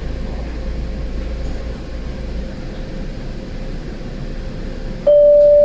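Boston Green Line light-rail car standing at a stop: a steady hum and rumble, its deepest part dropping away about two and a half seconds in. Near the end the train's loud electronic chime starts with one held high note, ahead of an automated announcement.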